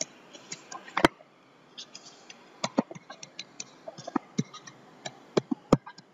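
Stylus tapping and clicking on a tablet screen while handwriting: irregular sharp clicks, with a loud one about a second in and a denser run from about two and a half seconds on.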